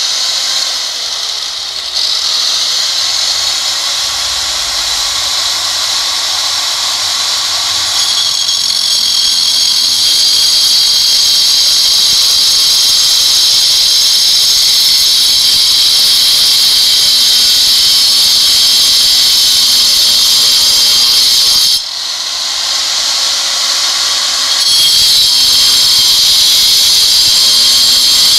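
Angle grinder with a cutting disc sawing through granite skirting, a loud, steady high-pitched screech of disc on stone. It eases a little after twenty seconds and comes back to full strength about three seconds later.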